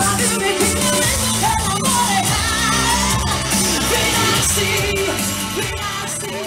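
A woman singing a pop song live into a microphone over amplified backing music, her voice in held, wavering notes.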